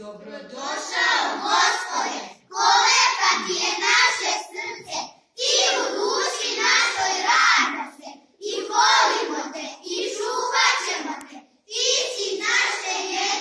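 A group of children singing, in lines about two to three seconds long with short breaks between them.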